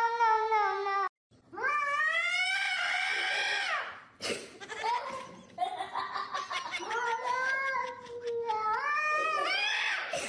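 A cat yowling in long, drawn-out calls that rise and fall in pitch, several in a row.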